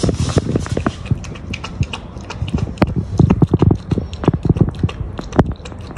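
Saint Bernard puppy eating soft rice and Cerelac from a plastic tub, a fast run of wet lapping clicks with sharper knocks mixed in.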